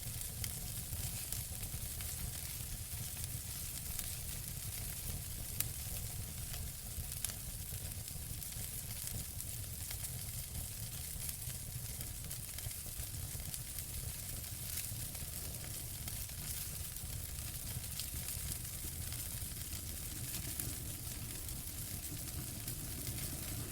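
Wood fire burning with steady hiss and frequent small crackles and pops, a few sharper pops standing out, over a low rumble of the flames.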